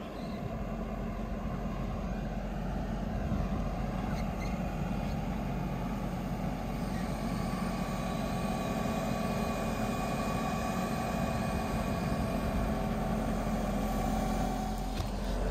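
Diesel engine of a JCB 145 tracked excavator running steadily while the machine lowers a pipe into a trench, with a faint high whine joining about halfway through.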